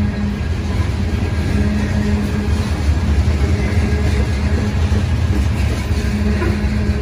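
BNSF freight train's covered hopper cars and boxcar rolling past on steel rails: a steady low rumble of wheels on track, with a steady hum under it.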